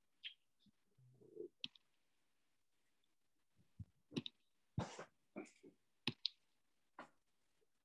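Faint scattered clicks and knocks of a computer mouse and desk handling, picked up by a video-call microphone. They come thickest from about four seconds in, with a few duller knocks among them.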